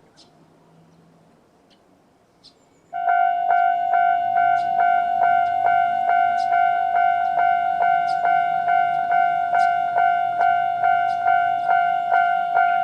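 Quiet with a few faint ticks, then about three seconds in a Japanese railway level-crossing alarm starts up. Its standard electronic bell rings at a fast, even tempo, the warning that a train is approaching.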